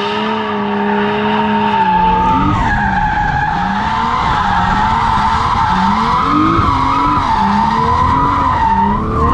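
Toyota Chaser (JZX100) drifting, its tyres squealing in a steady high tone. For the first two seconds the engine holds steady revs. Then, heard from inside the cabin under a louder low rumble, the revs rise and fall over and over while the tyres keep squealing.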